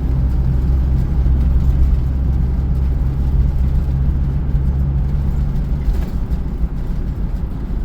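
A car driving along a road, heard from inside: steady engine hum and tyre noise on the pavement. The low engine hum eases a little about six seconds in.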